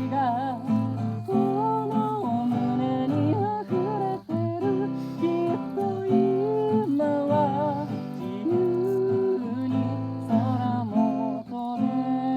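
Acoustic guitar music, plucked and strummed, with a melody line of held notes that waver in pitch.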